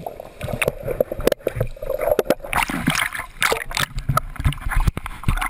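Sea water splashing and sloshing as survivors move in it, with many sharp knocks and bumps close to the microphone and brief snatches of voices.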